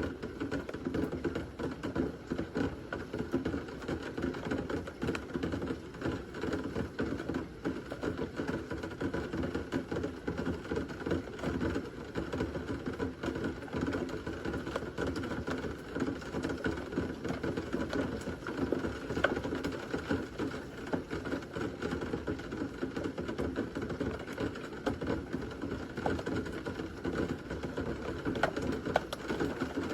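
Steady rain during a thunderstorm: a dense, even patter of drops with no clear thunder clap.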